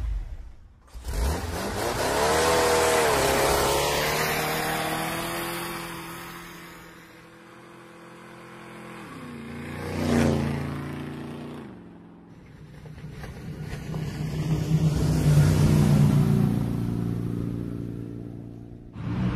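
Recorded car engine sounds moving past: an engine revs up a couple of seconds in, a vehicle sweeps by with a falling pitch about ten seconds in, and another engine swells louder near the end.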